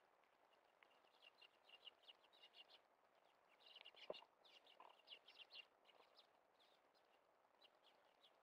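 Eurasian tree sparrows chirping faintly in quick chattering runs of short high chirps, with one sharp tap about four seconds in.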